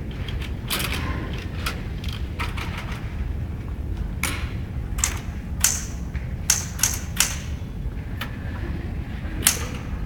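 Portable typewriter being typed on: an irregular patter of sharp key clacks, a few louder strikes bunched together, over a steady low hum.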